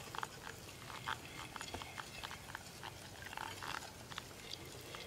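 Wire whisk stirring a thin milk-and-egg pudding mixture in a glass bowl: faint, irregular clicks and scrapes of the wires against the glass, several a second.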